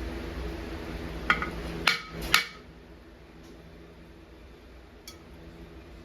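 Three sharp metallic clinks with a brief ring, about a second and a half in, over a steady machine hum. The hum stops just after the last clink, and one fainter click comes near the end.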